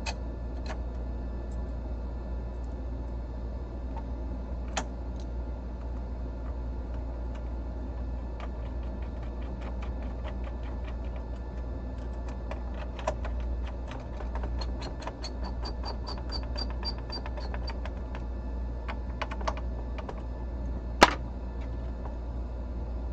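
Irregular light clicks and taps of a PlayStation 5's parts being handled and fitted back together, with a quick run of even clicks in the middle and one sharp snap near the end, over a steady low hum.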